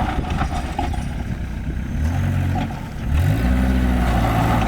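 Old Tata Safari 4x4's engine running, dropping briefly and then revving up about three seconds in before holding steady at the higher speed. A few knocks or rattles come in the first second.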